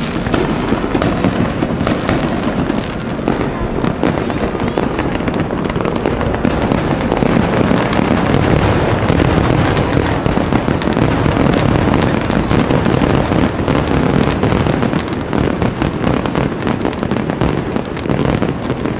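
Aerial fireworks display: many overlapping booms and crackles in a nearly continuous barrage, as the show heads into its finale.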